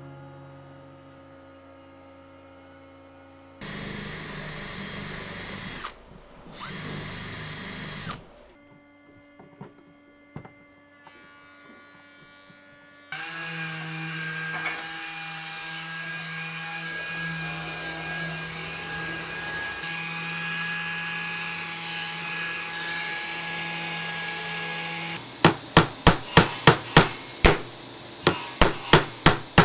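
Woodworking tools in sequence: a power tool running in two short bursts, then a motor-driven tool running steadily for about twelve seconds, then rapid hammer taps near the end, about three a second, typical of tapping wooden plugs into screw holes.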